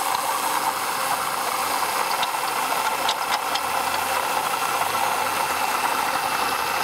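2004 Ford Taurus V6 running steadily under the open hood, with a steady grinding noise from somewhere in the engine bay that speeds up with the engine. The owner can't place it and wonders whether it is the air conditioning compressor.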